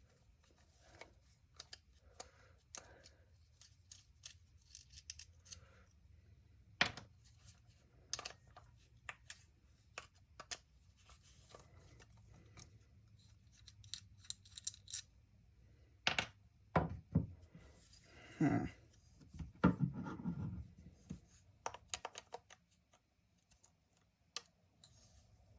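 Screwdriver and small metal parts clicking, tapping and scraping against an old carburetor body as it is worked apart. Scattered light clicks throughout, with a few louder clunks and rasping scrapes past the middle.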